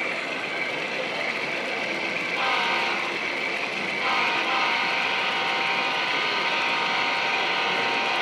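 An HO-scale model diesel locomotive's sound-equipped horn sounds a multi-note chord: a short blast about two and a half seconds in, then a long blast from about four seconds on. Steady background noise runs under it.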